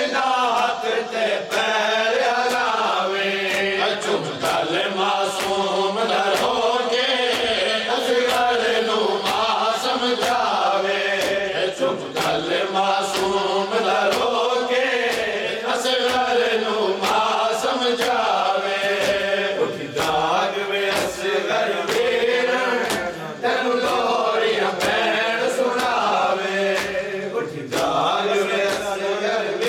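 A group of men chanting a noha in unison behind a lead reciter at a microphone, with rhythmic chest-beating (matam) sounding as regular slaps roughly once a second, keeping the beat.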